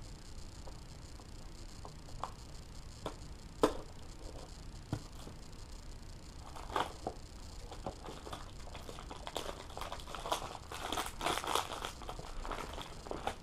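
A BMX chain's box and plastic packaging being opened by hand: a few separate handling clicks at first, then steady crinkling and tearing of the wrapping through the second half.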